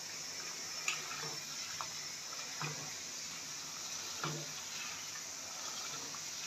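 Chicken and potato curry sizzling steadily in ghee as it is stirred, with about five short knocks of the spoon against the pot.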